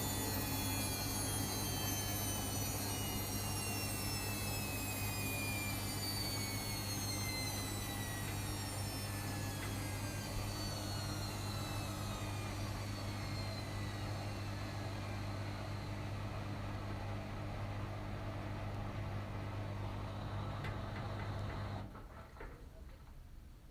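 Washing machine drum spinning down at the end of a spin: whining tones fall slowly in pitch over a steady low hum, and the hum stops suddenly about 22 seconds in.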